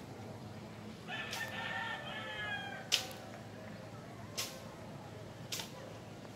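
A rooster crows once, for about a second and a half. Then three sharp knocks follow about a second apart, the first the loudest.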